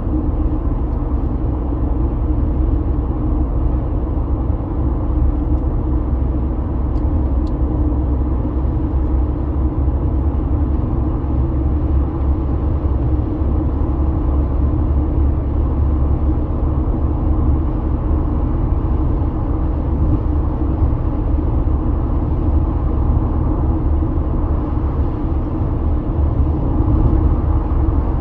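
Steady low rumble of tyre and road noise inside a car's cabin while cruising at highway speed.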